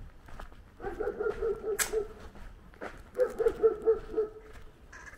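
A dog barking in two quick runs of barks, each lasting about a second, with footsteps ticking along in between.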